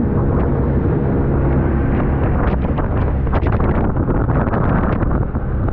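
Outboard motor pushing a small aluminium boat at speed: a steady engine drone under heavy wind buffeting on the microphone, with scattered short thumps.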